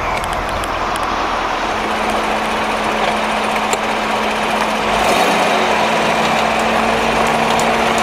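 C7 Corvette V8 running quietly in its stealth exhaust mode while the car is manoeuvred at low speed, with a few faint ticks. The ticking is the front-end snapping the owner hears when turning the wheel, an issue covered by a GM service bulletin on front strut bearing noise.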